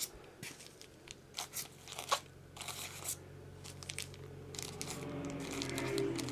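Plastic and foam packaging being handled: scattered crinkles and crunches. A low hum rises in the last couple of seconds.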